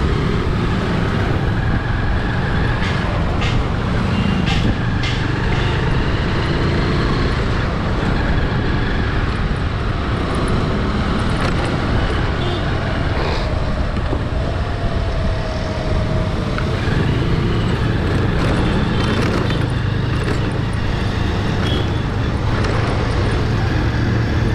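Steady noise of busy road traffic: engines of passing vehicles and tyre hiss, with a few brief clicks and knocks.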